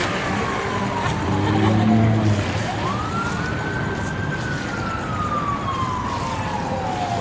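Emergency vehicle siren wailing over steady street noise. Its pitch sweeps down slowly, climbs quickly about two and a half seconds in, then falls slowly again.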